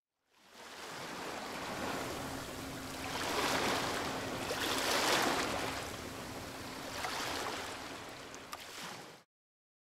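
Rushing water sound effect, like waves washing, fading in and swelling to its loudest about five seconds in. It carries a few small clicks near the end, then cuts off suddenly.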